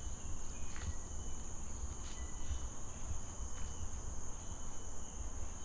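Steady, continuous high-pitched buzzing of forest insects such as crickets or cicadas, with a low rumble underneath.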